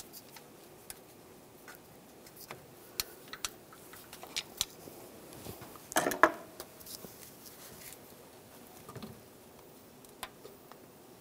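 Light, scattered clicks and scrapes of a metal pick being worked around the end of a rubber lower coolant hose, breaking it free from the water pump neck, with a louder rubbing scrape about six seconds in.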